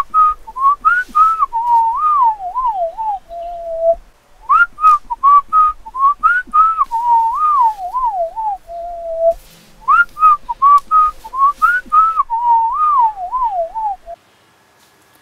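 A whistled tune played three times over. Each phrase is a run of short notes that wavers downward and ends on a longer held lower note. Light clicks fall with the notes.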